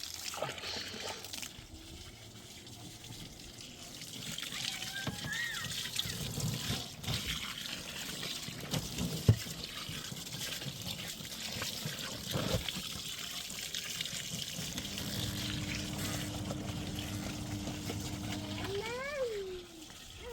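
Water running and splashing, with a few knocks. A steady hum starts about three-quarters of the way in and stops a couple of seconds before the end.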